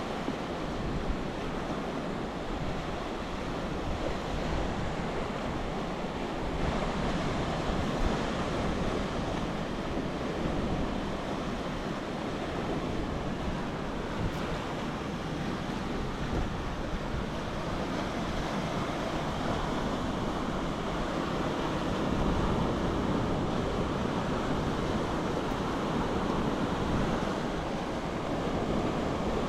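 Sea waves washing onto the shore in a steady, even wash that swells and eases gently, with wind buffeting the microphone.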